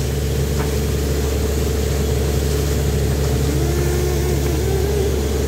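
Truck-mounted borewell drilling rig running steadily while drilling: a constant engine and air-compressor drone, with water and rock cuttings being blown up out of the bore around the casing.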